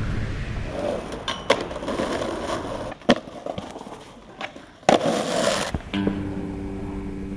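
Skateboard wheels rolling on pavement, broken by three sharp clacks of the board slapping and landing. About six seconds in comes a steady grinding tone as the board slides along a metal rail.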